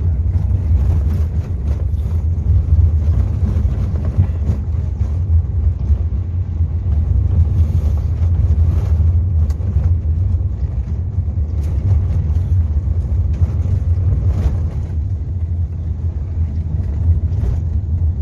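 Motor vehicle driving along a dirt road: a steady low rumble of engine and tyres, with scattered small knocks and rattles from the rough surface.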